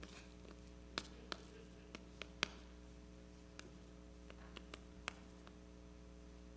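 Scattered short clicks and knocks as new shoes are handled, pulled on and set against their cardboard boxes, the loudest about two and a half seconds in, over a steady electrical hum.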